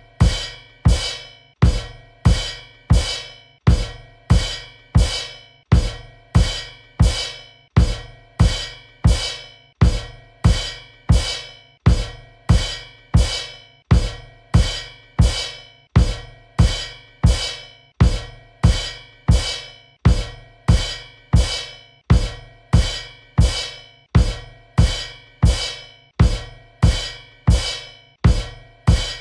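Cymbal kicks: a bass drum and a cymbal struck together over and over at an even pace, a bit more than once a second. Each hit is a low thump with a bright cymbal wash that rings off before the next.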